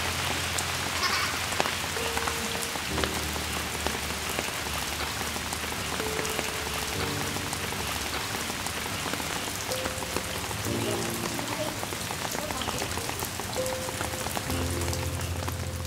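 Steady rain falling on surfaces, with scattered drops, over slow background music of long held notes.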